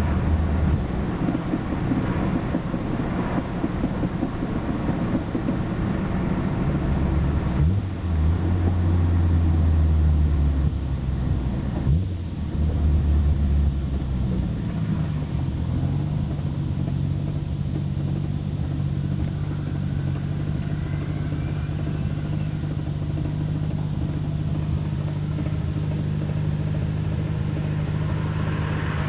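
Nissan Skyline GT-R BNR34's RB26DETT straight-six running with its stock Getrag six-speed gearbox rattling, heard with the windows open. The rattle is abnormally loud, a fault the owner fears means a gearbox overhaul. The engine note shifts a couple of times in the first half, then holds steady.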